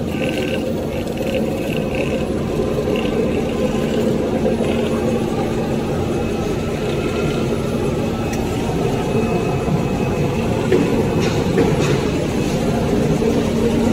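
Steady drone of running paper-converting machinery with a constant low hum, and a few faint clicks about three quarters of the way through.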